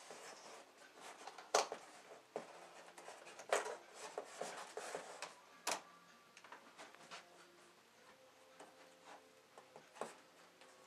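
Faint, scattered knocks, clicks and scrapes of someone working at a fridge's packaging by hand, the sharpest about one and a half, three and a half and six seconds in, then only a few small ticks.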